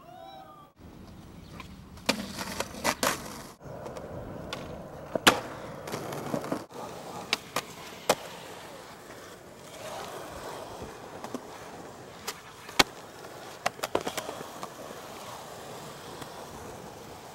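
Skateboard wheels rolling over concrete and asphalt, broken by sharp clacks of the board's tail popping and the board landing. The loudest cracks come about five seconds in and again near thirteen seconds, with a quick run of clacks around fourteen seconds.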